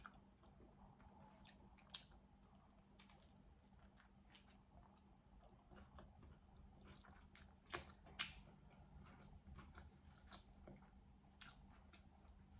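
Faint chewing of a grinder sandwich on baguette, with soft wet mouth clicks and a few slightly louder crackles about two seconds in and twice near the middle.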